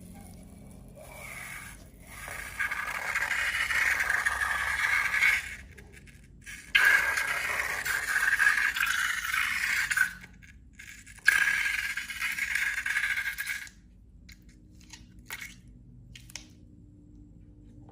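Scraping in three long stretches of a few seconds each, with short pauses between them, then a few faint clicks near the end.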